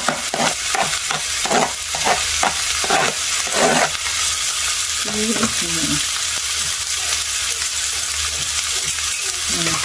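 Flaked boiled fish frying in oil and spice paste in a nonstick wok: a steady sizzle, with a metal spoon scraping the fish off a plastic cutting board into the pan in a quick run of strokes over the first four seconds.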